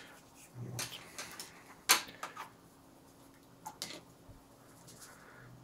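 Flat hake brush being worked in the mixing well of a metal watercolour palette tin: a few light taps and clicks, the sharpest about two seconds in and a quick pair near the end.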